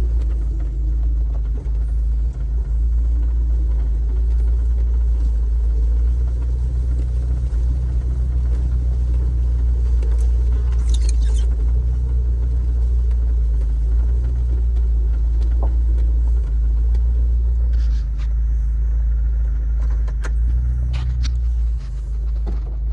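Jeep driving slowly over a rough farm trail, its engine and drivetrain making a steady low rumble. A few brief clicks or scrapes sound about halfway through and again near the end.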